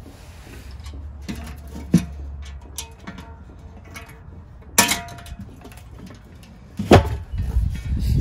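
Metal clinks and clunks as a Weber kettle's lid is fitted onto the bowl and joined at an aftermarket hinge. There are sharp knocks about five and seven seconds in, the second one the loudest, followed by low rumbling handling noise.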